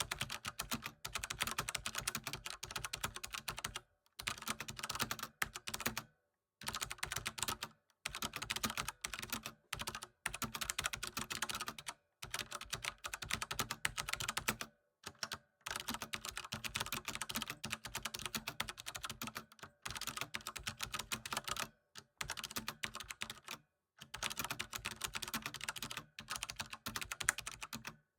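Fast typing on a computer keyboard: dense runs of key clicks broken by short pauses every second or few.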